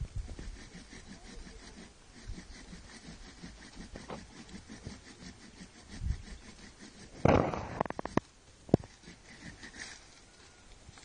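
Pruning of a leafy bush: stems being cut and snapped, with the foliage rustling. A loud rustle about seven seconds in is followed by several sharp snaps.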